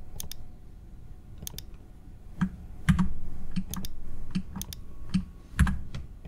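Computer keyboard keys being pressed in an irregular, unhurried series of clicks, a few of them heavier thumps.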